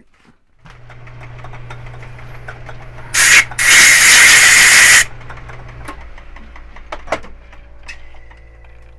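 Compressed air from a blow gun blowing chips out of a freshly drilled plastic shifter knob: a short blast about three seconds in, then a loud hiss lasting about a second and a half, over a steady machine hum.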